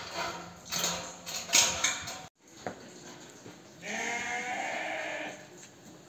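A few sharp knocks and clatter, then after a brief dropout a farm animal gives one long call lasting over a second.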